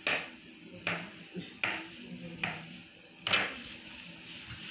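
Kitchen knife slicing through sausages and knocking on a plastic cutting board: five sharp taps a little under a second apart, the fifth the loudest.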